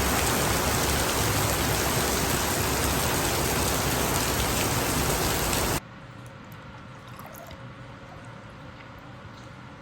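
Steady, loud rushing noise of water, cut off abruptly about six seconds in; a much quieter background with faint clicks follows.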